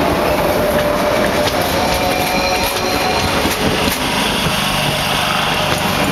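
Renfe commuter electric multiple unit passing close by: a steady rush of wheels on the rails, with a few clicks as the wheels cross rail joints.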